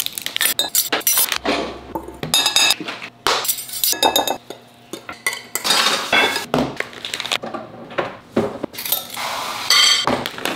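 Baking prep with glass mixing bowls: spoons and utensils clinking against the glass and containers knocked down on a stone countertop, in a string of short, irregular clinks and knocks.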